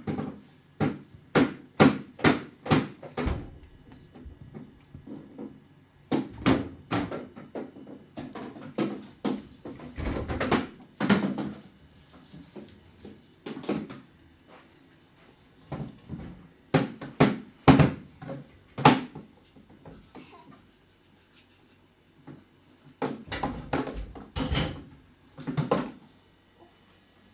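Irregular knocks and clatter of hard objects, coming in quick runs of several strikes with pauses between.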